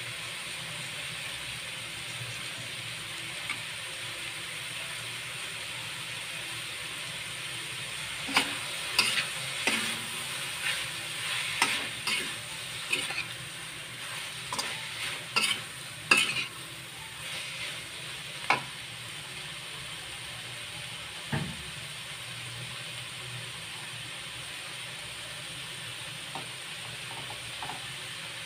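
Bean sprouts and mushrooms sizzling in a stainless-steel wok. Through the middle stretch a metal spatula scrapes and clacks against the pan as the food is tossed, and one dull knock follows a little later.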